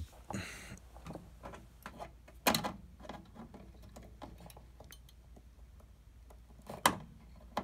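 Light clicks and rattles of wiring and sheet metal being handled inside an air fryer's open metal chassis, with two sharper knocks about two and a half seconds in and near the end.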